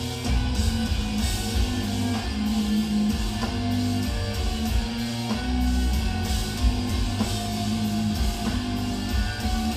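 Live heavy metal band playing: down-tuned electric guitars chugging in stop-start syncopated riffs over drum kit and bass, heard through a concert recording.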